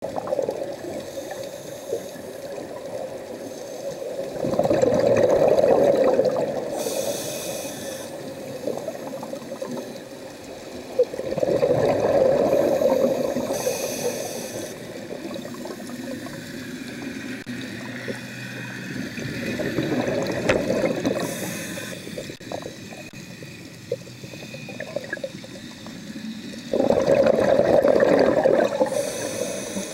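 Scuba diver breathing through a regulator underwater: four breaths about eight seconds apart, each a bubbling rumble of exhaled air lasting two to three seconds with a brief high hiss from the regulator.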